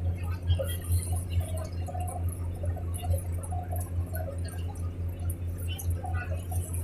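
Riverboat's diesel engine running with a steady low throb.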